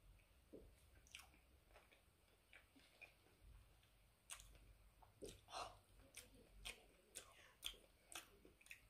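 Faint, wet mouth sounds of someone chewing ripe mango: soft, separate smacks and clicks, sparse at first and coming about twice a second from about halfway through.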